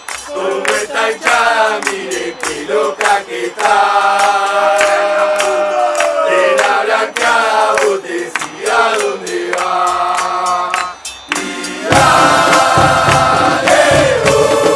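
Football supporters' chant sung by a group of men in unison over percussion. About twelve seconds in, heavy low drumming comes in under the singing.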